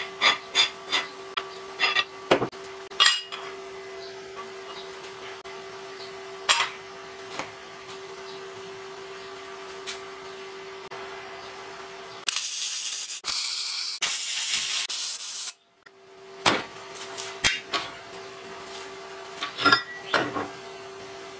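Sharp metallic clinks and taps as steel pipe and plate parts are handled and knocked into place, thickest in the first few seconds and again near the end. A little past halfway comes about three seconds of electric arc welding, a loud dense hiss and crackle that stops abruptly, as a disc is tack-welded onto the pipe. A faint steady hum runs underneath.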